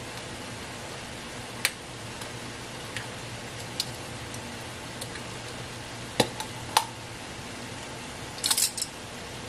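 Light sharp clicks and taps of a plastic measuring spoon and bottle being handled while coconut aminos is measured out, a few single ones spread through and a quick cluster near the end, over a low steady hiss.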